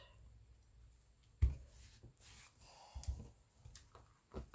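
Faint handling of a book and its fabric cover on a work surface: light rustles and small knocks, with a soft thump about one and a half seconds in and a couple more a little after three seconds.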